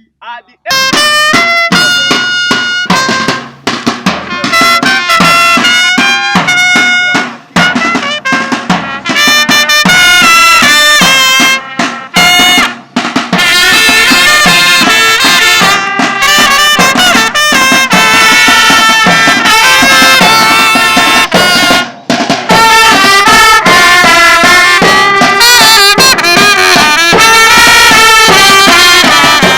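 Loud music led by brass, with drums: short punchy phrases broken by brief gaps at first, then continuous playing from about nine seconds in.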